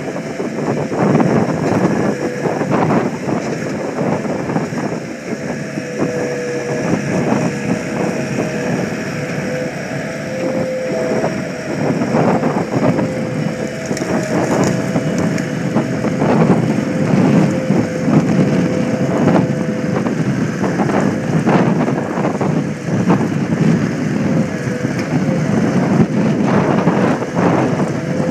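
Gehl 6635DXT skid steer loader's diesel engine running under working load, with a steady whine over the engine, as the loader tips its bucket and then pushes the bucket into a pile of dirt.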